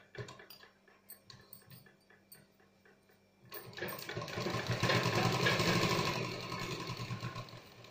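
Domestic sewing machine running and stitching for about four seconds, starting about three and a half seconds in and dying away near the end. Before it, a few soft clicks as the fabric and machine are handled.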